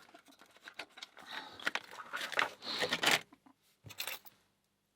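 A small 20 mm padlock and its keys being handled out of the package: a run of light metal clinks, rattles and rustles, loudest about two to three seconds in, with one more short clink around four seconds.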